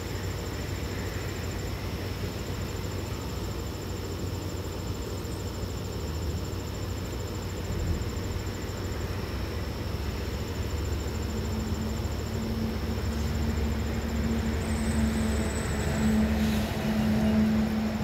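Low rumble of a passing motor vehicle, with a low hum that comes in about midway and grows louder towards the end. A steady high insect trill runs underneath.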